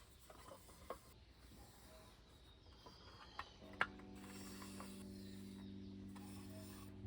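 Faint clicks and light handling noises, then soft background music of held notes comes in about halfway through.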